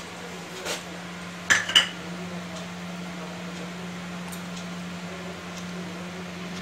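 A ladle stirring curry in a pan. It knocks against the pan with two sharp clinks about a second and a half in, followed by fainter ticks. A steady low hum runs underneath.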